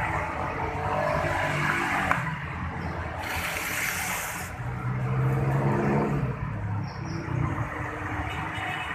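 Engine noise with a low hum that shifts in pitch, and a short burst of hiss about three seconds in.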